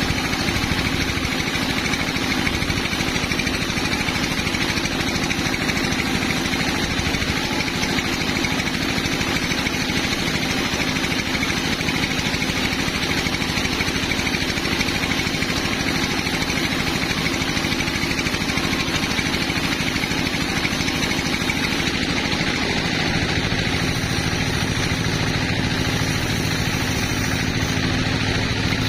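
Sawmill machinery running steadily with an engine-like drone at a steady pitch; the low part of the sound shifts about 23 seconds in.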